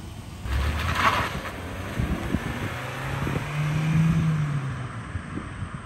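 Small Chevrolet hatchback pulling away hard on a hard acceleration run. A rushing burst comes first, then the engine note climbs and falls away as the car drives off.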